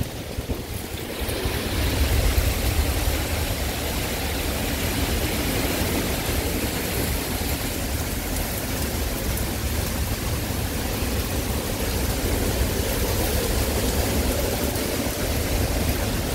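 Derecho winds and driving rain make a steady rushing noise, with a deep rumble of wind buffeting the microphone. It dips briefly at the start, then holds steady.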